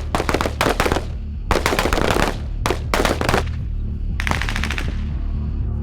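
Bursts of rapid automatic small-arms fire, five groups of closely spaced shots, over background music with a steady low bass.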